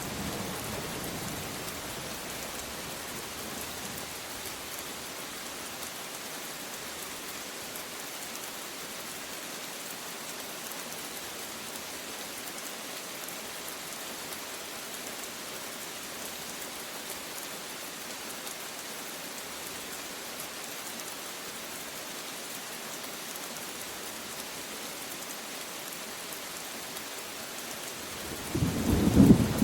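Steady rain falling, an even hiss throughout. A thunder rumble fades out in the first couple of seconds, and a loud new thunderclap breaks in with a deep rumble near the end.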